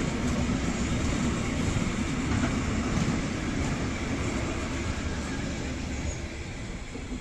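Freight train of hopper wagons rolling past: a steady rumble and rattle of wheels on rail, which fades as the last wagon goes by near the end.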